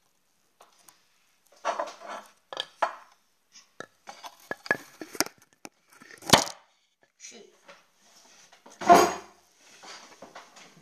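Handling noise from a phone being moved and set in place: scattered knocks, taps and rustles against the microphone, with two louder thumps about six and nine seconds in.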